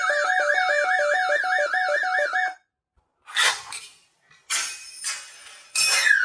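Intruder alarm siren on a Gardtec 595/600 system sounding. A fast warbling tone rides over a pulsing two-note pattern, and it cuts off suddenly about two and a half seconds in. After a short silence come a few brief clattering noises, and the siren starts again near the end.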